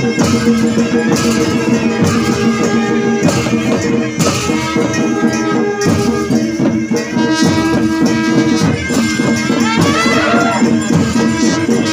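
Traditional Himachali temple band playing for a deity procession. Long brass horns hold steady notes over drum strokes and jingling, rattling percussion.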